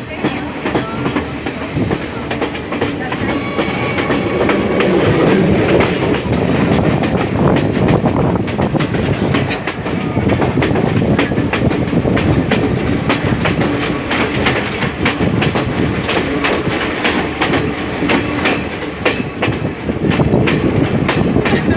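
Train running along the track, its wheels clicking rhythmically over the rail joints under a continuous rumble; the clicks come more distinctly in the second half.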